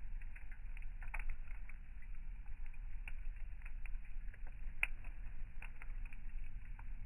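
Campfire burning with irregular crackles and pops, one sharper snap about five seconds in, over a steady low rumble.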